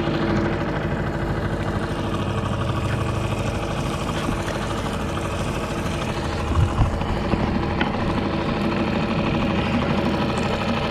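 Small 6-horsepower outboard motor idling steadily on a rental fishing boat. A couple of low thumps come about six and a half seconds in.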